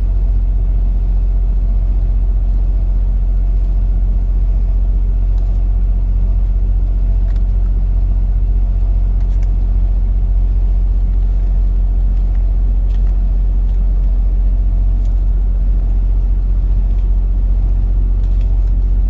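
Steady low rumble with no change in level, with a few faint ticks scattered through it.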